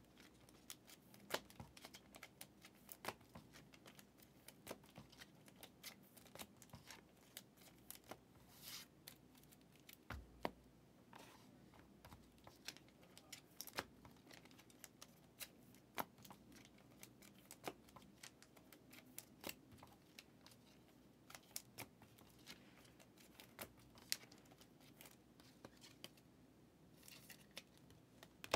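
Faint, irregular clicks and light rustles of trading cards being handled and set down on a table, with a soft low thump about ten seconds in.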